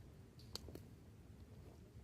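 Campfire crackling faintly, with two sharp pops about half a second in, over a low background hum.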